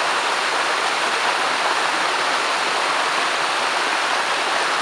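Shallow stream rushing over rocks close by: a steady, even water noise.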